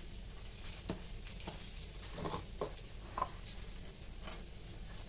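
Urad dal paste frying in hot oil on a nonstick tava: a faint steady sizzle with scattered small crackles.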